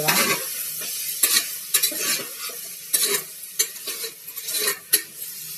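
Metal spoon stirring rice and lentils into a spice masala in a pressure cooker, scraping against the pot in irregular strokes over the sizzle of the hot oil.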